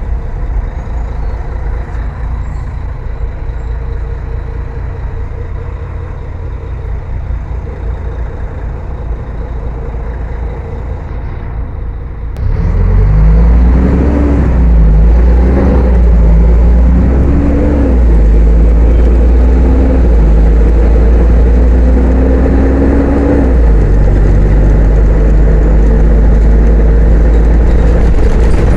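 Mercedes-Benz O500-UA articulated bus's diesel engine with ZF automatic gearbox, running steadily and fairly quietly at first. About twelve seconds in it pulls away under load: the engine note climbs and drops back several times as the gearbox shifts up, then settles to a steady run near the end.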